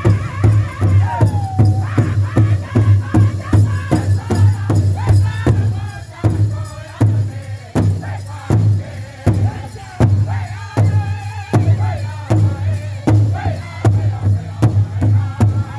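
Powwow drum group singing an intertribal song: a big drum struck in a steady beat, about two to three strikes a second, under high-pitched group singing.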